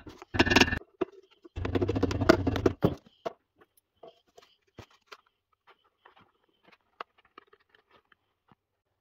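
Hammer tapping gasket paper against the edges of a cylinder flange in quick runs of taps during the first three seconds, cutting out a cylinder base gasket. After that come faint scattered snips and rustles of scissors trimming the gasket paper.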